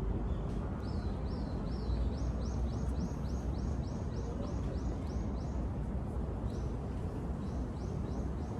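A small songbird singing fast runs of short rising chirps, about four a second, in two bursts, over a steady low outdoor rumble.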